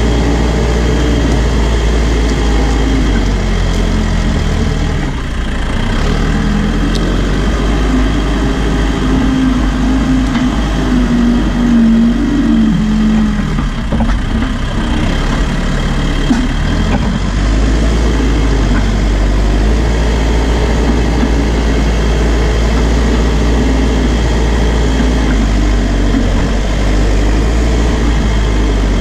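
New Holland B95 backhoe loader's diesel engine running steadily while the machine drives and pushes dirt with its front loader bucket. The engine note shifts in pitch for a few seconds in the middle.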